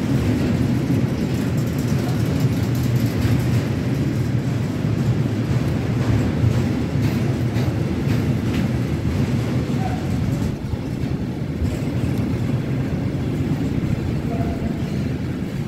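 Freight train of tank wagons rolling past at close range: a steady rumble of steel wheels on the rails with scattered clicks. It eases a little about ten seconds in and again near the end as the last wagons go by.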